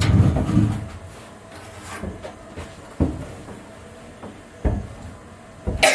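A low rumble that dies away within the first second, then several separate knocks and thumps: one about three seconds in, one near four and a half seconds, and a louder double knock near the end, like wooden boat parts being pulled and set down during a tear-down.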